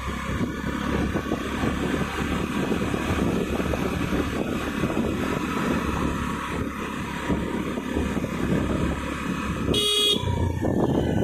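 A motor two-wheeler running along a road, with steady engine and road noise, and a short horn beep about ten seconds in.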